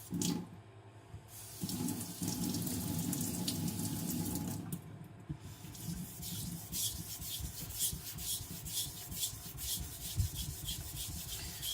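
A gyuto's blade being stroked back and forth on a wet Naniwa Professional 1000-grit whetstone, an even scraping about two to three strokes a second, working up a burr along the edge. Before the strokes start, a few seconds of water rushing.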